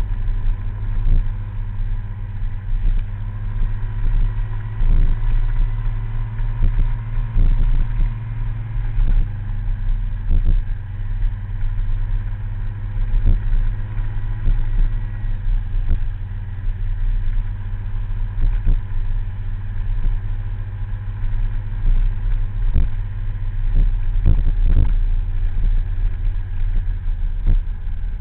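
Small scooter engine running steadily while riding, with frequent short sharp knocks scattered through it.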